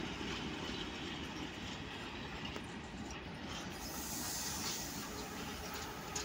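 Freight train hauled by an ET22 electric locomotive rolling past, its wagons' wheels running steadily on the rails. A high hiss rises briefly about four seconds in, and there is one sharp click near the end.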